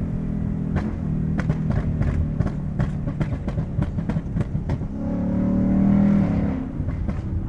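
A 2020 Ford Mustang's engine and exhaust on a P1Tuners tune, running with a string of sharp exhaust pops and crackles. Near the end the engine swells louder under throttle, then eases off, with a few more pops.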